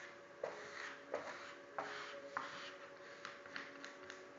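A squeegee rubbing in repeated strokes over a wet vinyl decal, pushing water and air out from behind it. Several scraping strokes come about every half to three-quarters of a second and grow fainter toward the end.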